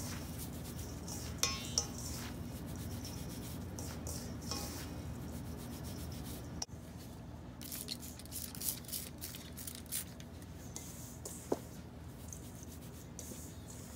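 Hands rubbing and crumbling damp bath bomb powder (baking soda, Epsom salt, cornstarch and citric acid) against the inside of a stainless steel bowl: a gritty, sandy scraping with a few light clicks. The sound drops out suddenly about halfway through, then carries on a little quieter.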